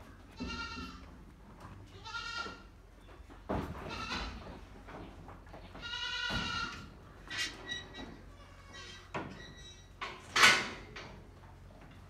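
Goats bleating: several high bleats a second or two apart, with a loud sharp noise about ten seconds in.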